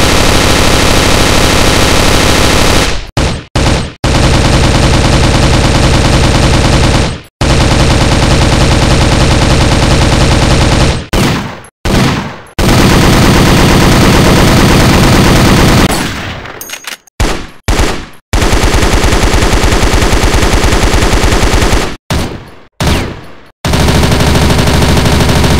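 Automatic gunfire sound effects: several long bursts of rapid fire of about three to four seconds each, broken by brief gaps with a few short single shots or short bursts between them.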